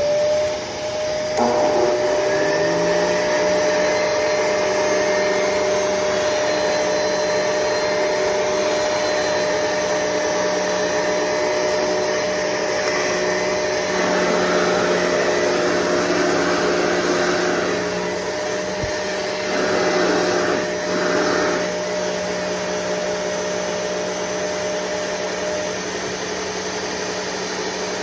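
Shark Rotator and Hoover convertible upright vacuum cleaners switched on one after the other, about a second and a half apart, each motor whining up to speed. Both then run together at their highest setting with brush rolls off, with a couple of noisier surges in the middle. One motor's steady whine stops near the end.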